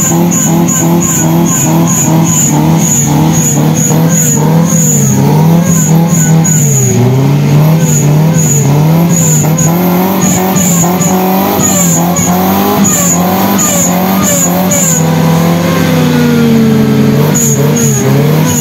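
Off-road 4x4's engine revving up and down under heavy load as the vehicle churns through deep mud, its pitch rising and falling every second or so.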